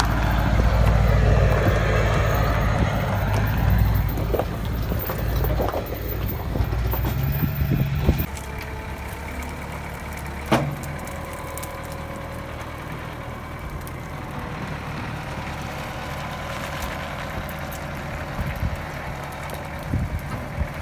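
Truck engine running, louder for about the first eight seconds, then a quieter, steady idle. A single sharp knock comes about ten seconds in.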